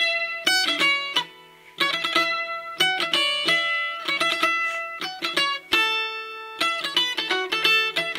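Background music: a plucked string instrument picking a quick melody of separate notes, with a brief pause a little over a second in.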